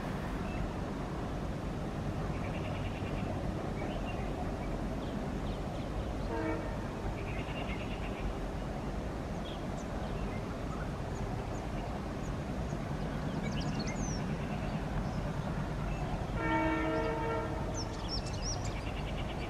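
Indian Railways diesel locomotive's air horn sounding briefly about six seconds in and again, louder and for about a second, near the end, over a steady low rumble.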